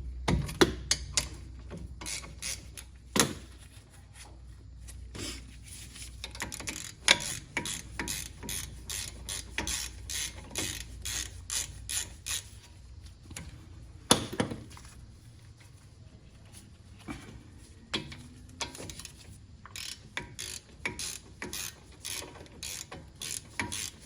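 Hand ratchet clicking in repeated bursts of quick strokes while working a 14 mm brake caliper bolt loose, with short pauses between runs.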